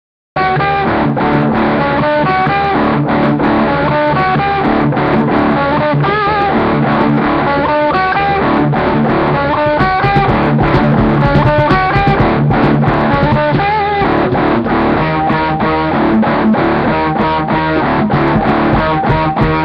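Live rock band playing an instrumental passage: distorted electric guitar riff over bass guitar and drums.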